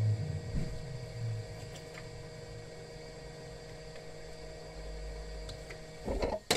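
Hot air gun running with a steady hum and whine, heating a Samsung Galaxy Grand Prime's touchscreen to soften its adhesive. There are a few light knocks of handling in the first second or so, and a short clatter ending in a sharp click near the end.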